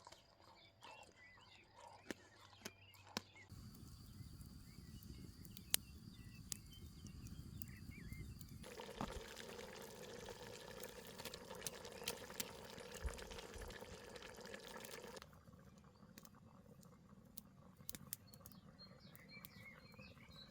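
Faint outdoor cooking sounds: a wood fire crackling with scattered sharp pops under a simmering, bubbling pot of goulash. The sound changes abruptly a few times, louder and fuller in the middle stretch.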